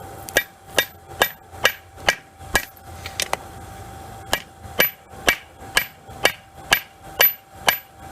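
Hand hammer striking a hot railroad spike on an anvil, about two blows a second, each with a short metallic ring, with a brief pause near the middle. A steady hum runs underneath.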